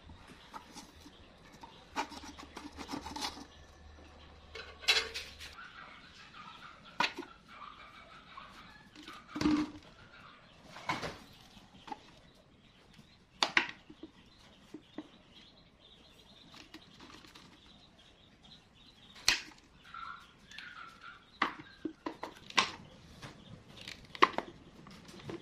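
Thin plastic drink bottles being handled and pierced with a metal rod: scattered sharp crackles, clicks and taps of the plastic against the rod and the board.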